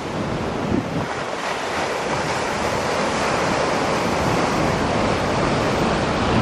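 Steady rushing roar of surf breaking against a rock-armoured seawall, with wind buffeting the microphone in low gusts.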